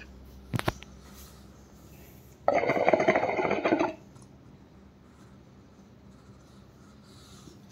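Hookah water bubbling in the glass base of a Cocoyaya Maharaja hookah as smoke is drawn through it, a rapid gurgle lasting about a second and a half from a few seconds in. A couple of sharp clicks come shortly before it.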